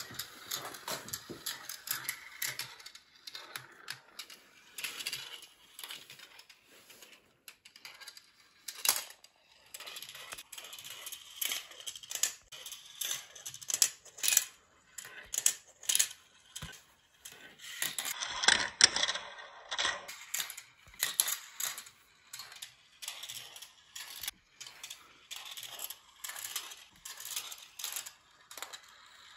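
Marbles rolling along the metal rails of a GraviTrax marble run and clacking through its plastic curves and catchers: an uneven run of clicks and rattles, with a denser burst of rattling about two-thirds of the way through.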